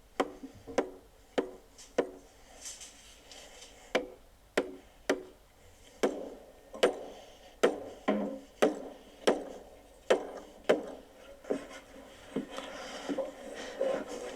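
Hammering on a building site: sharp, irregular hammer blows, about one or two a second, each ringing briefly.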